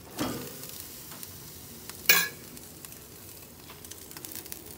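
Rack of pork ribs sizzling on a grill grate over a low flame. A brief scrape comes just after the start, and a sharp, loud knock about two seconds in as the meat is handled on the grate.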